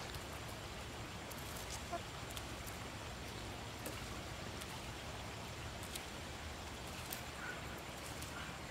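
Faint backyard ambience: a steady low hiss with a few soft, scattered ticks.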